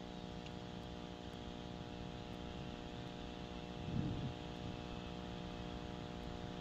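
Steady electrical hum with a faint hiss from a wildlife camera's audio feed, with one brief low thump about four seconds in.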